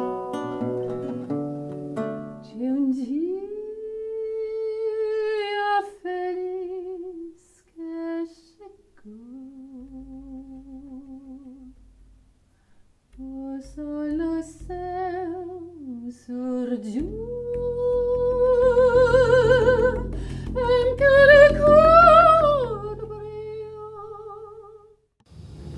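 Lyric singing: long held notes with a wide vibrato and no clear words, climbing to its highest and loudest near the end. Guitar notes open the passage, and a low sustained accompaniment comes in about ten seconds in and swells past halfway.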